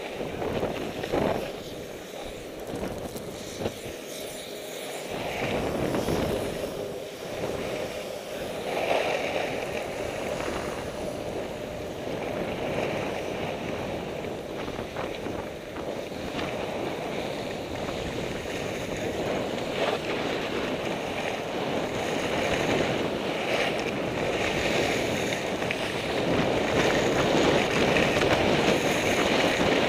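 Wind rushing over the microphone and skis sliding and scraping on packed snow during a downhill run, a steady rushing noise that grows louder toward the end as speed builds. A brief knock about a second in.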